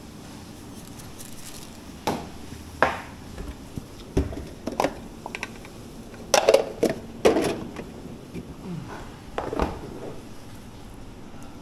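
Kitchen work sounds: scattered knocks and clinks of dishes and utensils, a dozen or so irregular strikes bunched in the middle, over a steady background hum.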